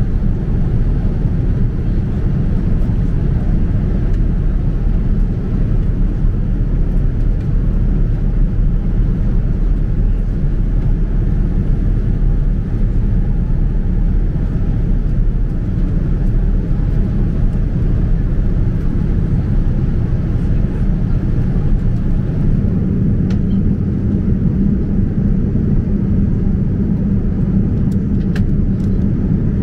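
Steady low rumble of an airliner cabin in flight, the engine and airflow noise heard from a seat inside a Boeing 787-9.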